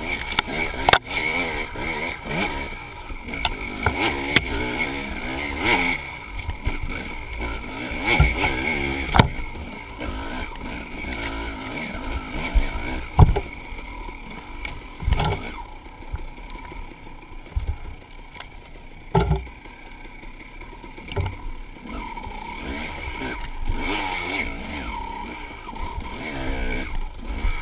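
KTM enduro dirt bike engine revving up and down over and over as it is ridden slowly over rough ground, with several sharp knocks as the bike bumps over the trail.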